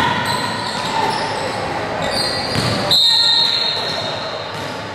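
Basketball game sound in a large gym: a ball bouncing and voices echoing through the hall. About three seconds in, a sharp, steady high tone starts and lasts about a second.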